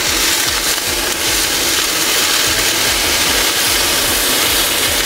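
Frozen mixed vegetables and onion sizzling steadily in oil in a cast-iron camp-oven lid used as a frying pan, stirred with a spatula as their moisture cooks off.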